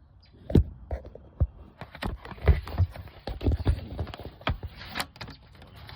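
Handling noise close to the microphone: irregular knocks and thumps, joined by a scraping rustle from about two seconds in, as things are moved around inside the car's wheel well.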